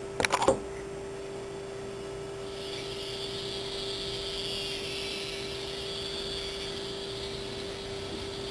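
A few sharp clicks, then the small electric drive motor and gears of a 1:50 scale RC model DAF XF95 truck whining steadily over a constant hum. The whine comes in about two and a half seconds in.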